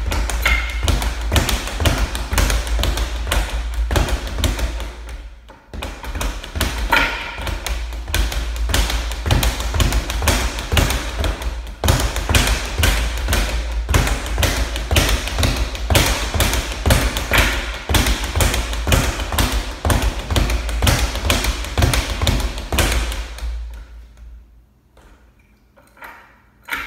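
Speed bag being punched in a fast, steady rhythm, knocking against its wall-mounted rebound board in a rapid run of taps and thuds. The rhythm breaks briefly about five seconds in and stops a few seconds before the end, when the bag is caught.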